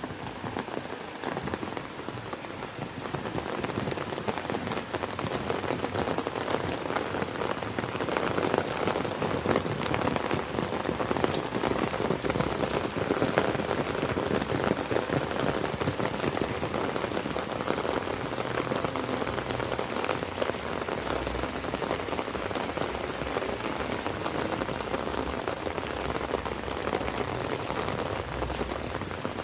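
Steady rain falling, a dense patter of many individual drops striking close by, growing a little louder over the first several seconds and then holding even.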